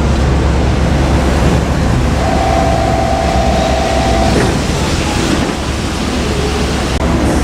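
JR Kyushu 817-series electric train running past, a loud steady rumble with a noisy, wind-like rush over it and a steady tone for about two seconds in the middle.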